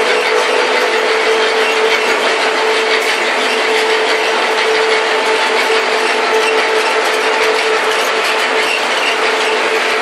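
Several machines of a processing line running together, including electric motors, gear drives and a bucket elevator. They make a loud, steady mechanical din with a constant hum and a dense rattling clatter.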